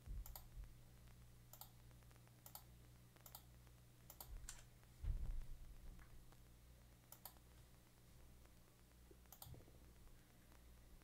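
Sparse computer mouse and keyboard clicks, about eight sharp separate clicks at irregular intervals, over a faint low hum. A dull thump about five seconds in is the loudest sound.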